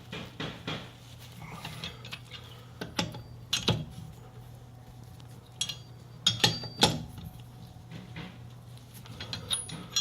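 Tire iron clinking and knocking against the car's lug nuts as they are given a final tightening in a cross pattern: irregular sharp metal clanks, a few close pairs, with short rings.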